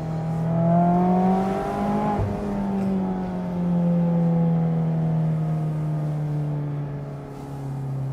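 2024 Mazda MX-5 Miata's 2.0-litre four-cylinder engine through an aftermarket exhaust, heard from the open-top cabin: the revs climb under acceleration, drop sharply about two seconds in on an upshift, then run on at lower revs, easing off slowly.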